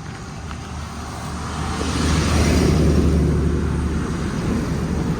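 A road vehicle passing close by, its engine and tyre noise swelling to a peak about two and a half seconds in and then easing off.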